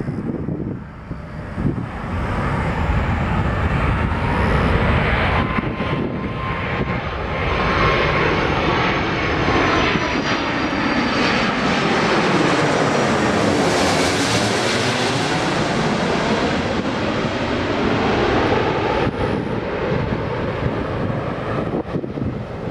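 Airbus A330-200 twin-engine jetliner flying past low on its landing approach. The engine noise swells a couple of seconds in, peaks about two-thirds of the way through as the plane passes closest, then eases, with a whining tone that drops slightly in pitch.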